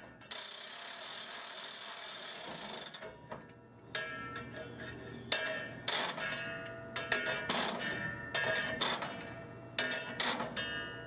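Railcar hand brake being worked with a brake stick. A steady rushing noise runs for about three seconds, then comes a string of sharp metallic clanks with a ringing tone, about one or two a second, as the brake mechanism is turned.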